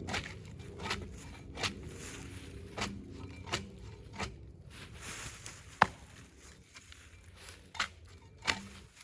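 A hand tool hitting and scraping bark off a log in a run of sharp knocks, about one every two-thirds of a second. It slows to a few single strikes, the loudest about six seconds in, as the bark is peeled away.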